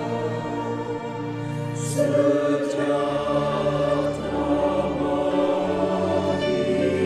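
Choir singing a Christmas carol with instrumental ensemble accompaniment, held chords moving to a new, louder chord about two seconds in.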